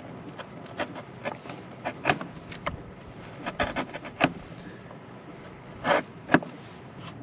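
A small knife whittling a wooden stick: a string of short, irregular cutting scrapes, two of them louder about six seconds in.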